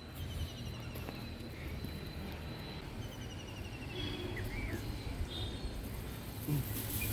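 Outdoor ambience: a steady low rumble with faint bird chirps and short rapid trills now and then.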